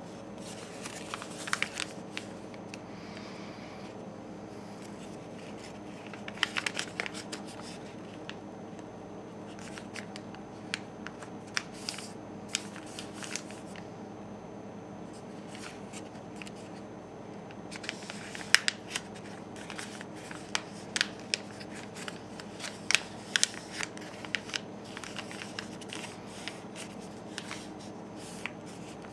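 A square of paper being folded and creased by hand on a wooden tabletop: bursts of crisp crinkles and rustles come and go, busiest in the second half, over a steady low hum.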